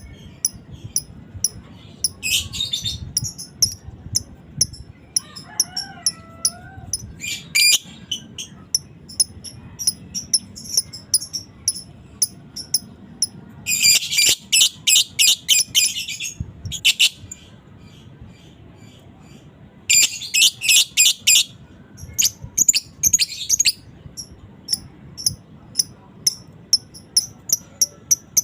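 Lovebird calling: a steady string of short, high chirps, broken by long, rapid chattering trills about 14 and 20 seconds in. These trills are the 'ngekek' chatter of a fighter lovebird.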